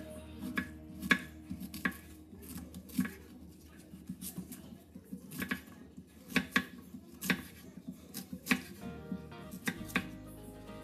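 Kitchen knife dicing zucchini on a wooden cutting board: irregular sharp knocks of the blade striking the board, roughly one to two a second.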